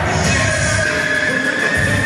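Music playing, with long held notes over a low pulsing accompaniment.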